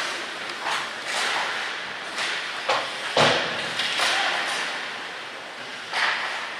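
Ice hockey play in a rink: skate blades scraping the ice and sticks striking the puck in short, sharp strokes, with a heavy thud against the boards about three seconds in. Every hit echoes in the arena.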